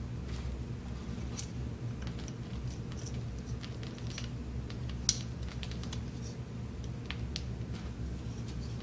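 Small plastic clicks and taps as shutter parts of a Gakkenflex twin-lens reflex kit camera are handled and fitted, with one sharper click about five seconds in, over a steady low hum.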